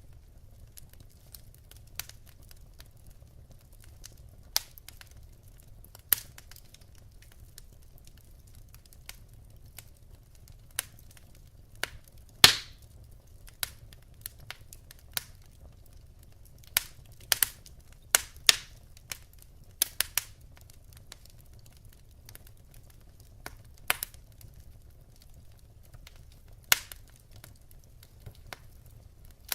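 Wood fire in a fireplace crackling: irregular sharp pops from the burning logs, the loudest about twelve seconds in and a quick run of them a few seconds later, over a faint low hum.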